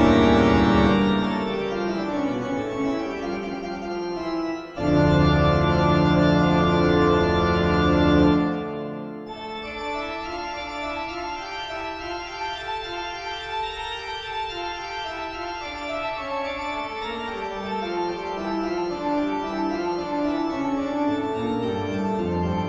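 Eerie horror-style organ music with sustained chords. A loud, deep chord swells in about five seconds in and breaks off near the middle, followed by a quieter passage of slowly moving notes.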